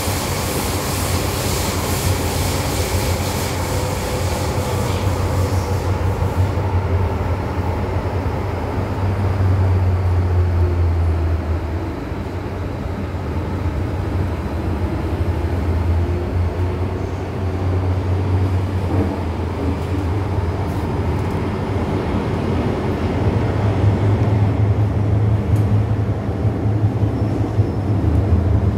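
MTR Island Line M-Train running on the underground line, a steady rumble of wheels and running gear that swells and eases, with faint pitched motor tones sliding up and down. A loud hiss sits over it for the first six seconds or so, then drops away.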